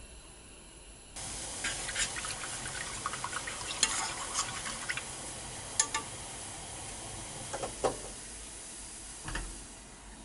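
Milk heating in a saucepan on a gas burner, starting about a second in: a steady sizzling hiss from the bubbling milk, with many small pops and clicks as a utensil stirs it, fading near the end.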